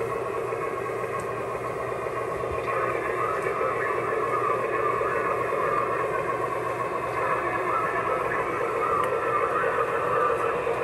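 Lionel O-gauge RS-11 diesel locomotive's onboard sound system playing a steady ALCO diesel engine rumble through its small speaker, mixed with the model's running noise on three-rail track. It gets slightly louder toward the end as the locomotive approaches.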